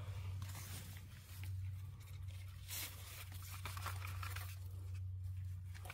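Faint rustling and crackling, with one sharper crackle almost three seconds in, over a steady low hum.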